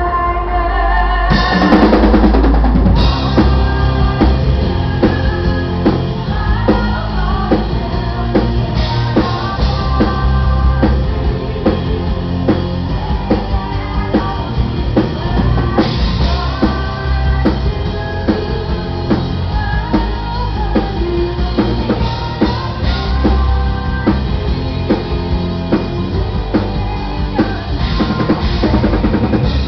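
Symphonic metal band playing live and loud: driving drum kit with steady bass and snare drum hits under distorted electric guitar, with a female lead vocal at times.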